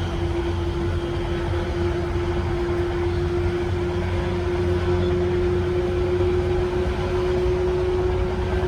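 Running sound of a JNR 185 series EMU motor car: the MT54 DC traction motors and gearing give a steady whine that rises slightly in pitch, over the continuous low rumble of wheels on rail.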